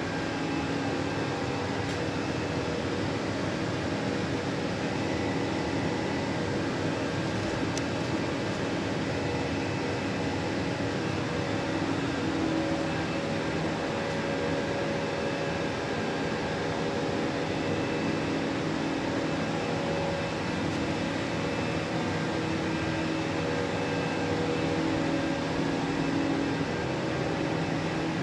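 Steady hum of running machinery, with a few steady tones over an even fan-like noise and no sudden events.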